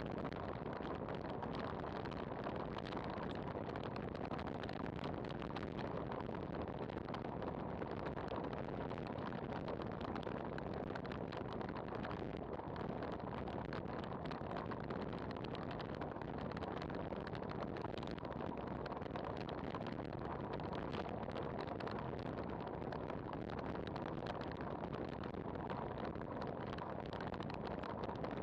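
Steady rush of wind over a bike-mounted camera's microphone on a fast road-bike descent at around 60 km/h, with no changes or separate events.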